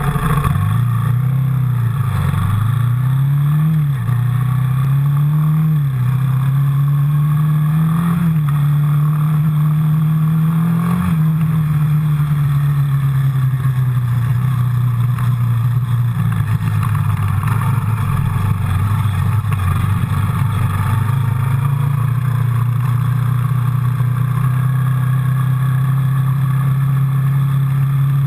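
Yamaha Raptor quad bike's single-cylinder four-stroke engine under way. Its pitch climbs and drops back sharply about five times in the first eleven seconds as it pulls away through the gears, then holds a fairly steady pitch while cruising.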